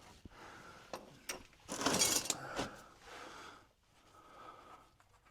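Ratchet wrench working loose an oil-sump drain plug: scattered tool clicks and metal clinks, with a louder scraping, rustling burst about two seconds in and another shortly after.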